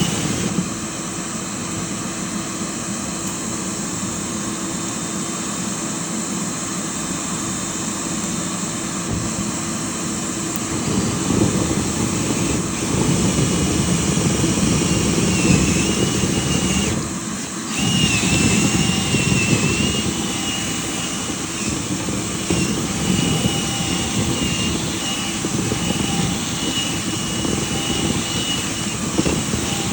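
Dryer vent cleaning equipment motor running steadily, a loud rushing noise with a wavering high whine. It dips briefly about 17 seconds in, then picks up again.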